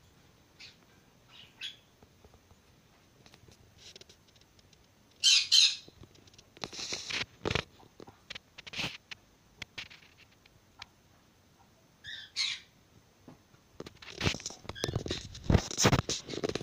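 A bird chirping a few times in short, high calls, among scattered sharp clicks. Near the end comes a busy stretch of rustling and knocking.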